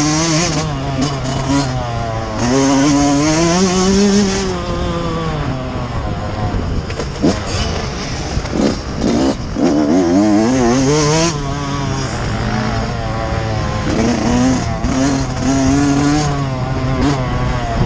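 Yamaha YZ125's two-stroke single-cylinder engine revving hard and easing off as the bike races a motocross track, its pitch climbing and dropping repeatedly and wobbling quickly near the middle. Bursts of wind rush over the helmet microphone.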